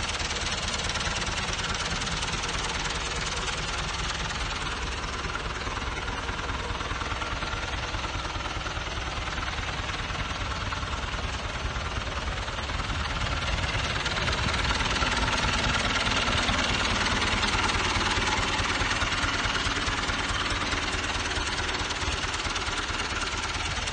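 John Deere 2130 tractor's diesel engine idling steadily with a fast, even clatter, a little louder from about halfway through.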